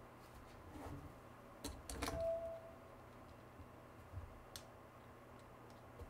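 Quiet paper handling: a few light clicks and taps as small paper pieces are pressed and smoothed onto a collage, with a brief single steady tone about two seconds in.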